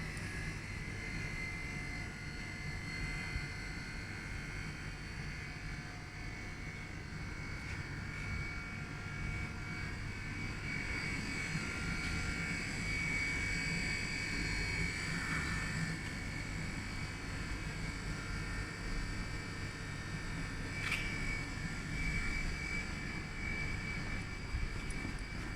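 Steady running machinery: a low hum with several high whining tones held throughout, and a single sharp click about three-quarters of the way through.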